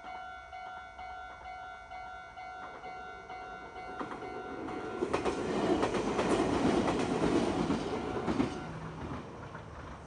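Japanese level-crossing warning bell ringing, which stops about halfway through as a red Meitetsu electric train passes over the crossing. The train's wheels clack over the rail joints, loudest just after the bell stops, and the sound fades near the end.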